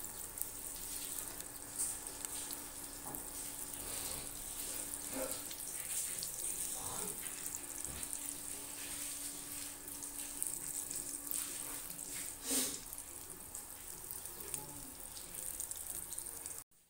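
Pan of Assamese boiled dal with taro and elephant apple simmering: a steady watery bubbling hiss.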